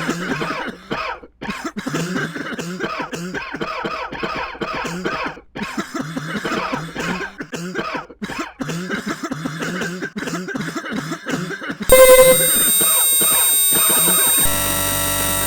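A person coughing over and over in quick, rough bursts for about twelve seconds. Then a much louder blast of steady held tones cuts in suddenly and shifts to a different set of tones about two and a half seconds later.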